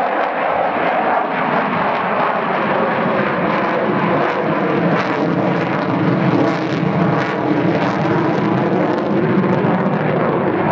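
Avro Vulcan B2 XH558's four Rolls-Royce Olympus turbojets, loud and continuous as the delta-wing bomber banks overhead in a flying display.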